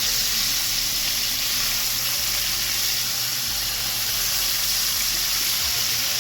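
Flour-coated chicken pieces frying in hot oil in a pot: a steady, even sizzle.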